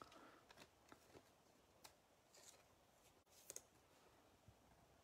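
Near silence, with a few faint clicks and soft rustles of trading cards being handled.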